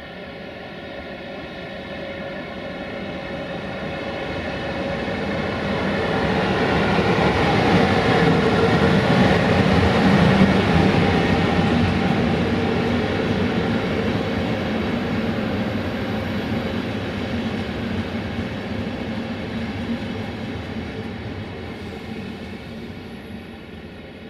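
Electric locomotive (CFR class 060-EA, LE5100 kW) and its passenger coaches running past, a steady rolling rumble with a faint hum that grows louder to a peak about ten seconds in, then fades as the train moves away.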